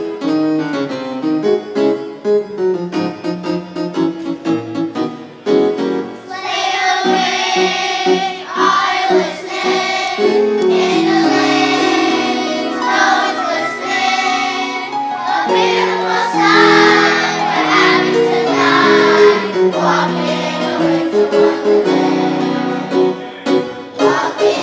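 A children's choir singing a song to piano accompaniment. The piano plays alone for about the first six seconds before the children's voices come in.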